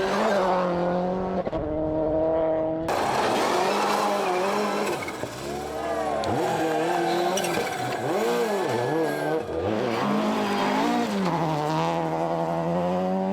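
World Rally Car's turbocharged four-cylinder engine revving hard at full throttle. Its pitch climbs and drops again and again as the driver shifts gears and lifts through corners.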